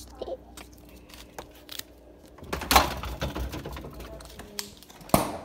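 Irregular clicks and knocks of objects being handled close to the microphone, with two louder knocks, one about two and a half seconds in and one near the end.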